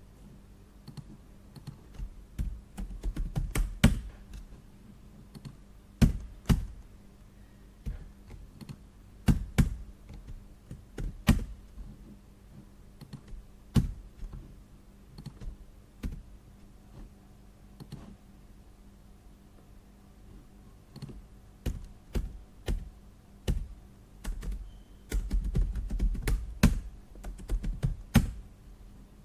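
Office desk clicking: scattered sharp clicks and taps, with short runs of rapid clicking like typing a few seconds in and again near the end, over a faint steady low hum.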